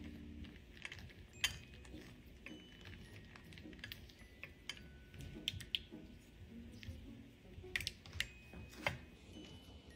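Silicone spatula stirring dark coating-chocolate wafers in a glass bowl over a pan of hot water: irregular light clicks and taps as the wafers knock against the glass and each other while they melt.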